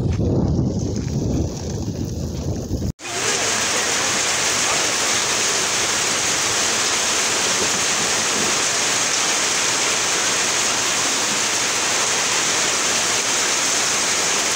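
Low, gusty rumble with wind on the microphone, broken off by a sudden cut about three seconds in. A loud, steady hiss follows and does not change.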